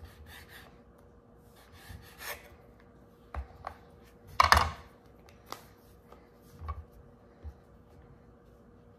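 Kitchen knife cutting through a stack of round raw samosa pastry sheets on a wooden board, then the cut pastry sheets rustling as they are handled, with several light knocks on the board and one sharper knock about halfway through.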